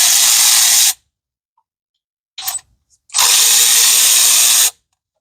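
Power ratchet spinning in two bursts of about a second and a half each, with a short clatter between, backing out the timing cover bolts on a 4.3 V6.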